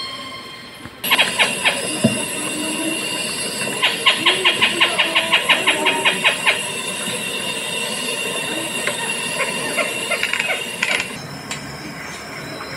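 Recorded cicada call played from an exhibit speaker. It is a steady high-pitched buzz that starts suddenly about a second in, with a run of fast clicking pulses, about eight a second, partway through. Near the end it switches to a different recording with other steady high tones.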